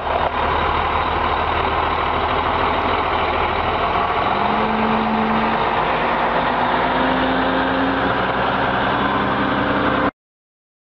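Heavy-haul semi truck's diesel engine running as the rig passes, pulling an oversize load. A low hum climbs in pitch in steps about halfway through. The sound cuts off abruptly to silence about ten seconds in.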